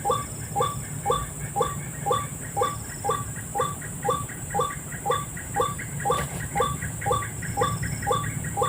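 White-breasted waterhen 'ruak-ruak' calls repeated about twice a second in an even, unbroken rhythm: the MP3 recording of the call played as a lure. A steady high hiss runs underneath.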